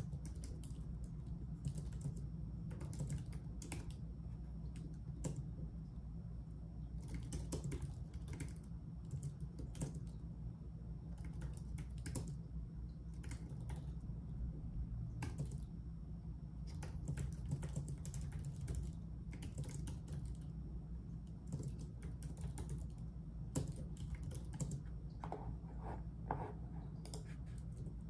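Typing on a computer keyboard: quick runs of keystroke clicks in irregular bursts with short pauses, over a steady low hum.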